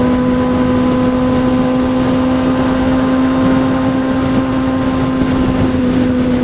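A vehicle being driven at a steady speed: an even engine drone at one unchanging pitch over road and wind noise.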